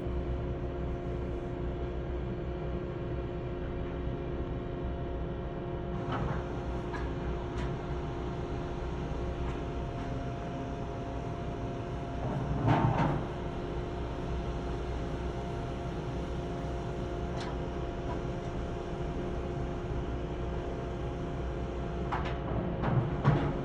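Drilling rig machinery running with a steady engine drone and hum, broken by metallic bangs of drill pipe: a loud one about halfway and a cluster of bangs near the end.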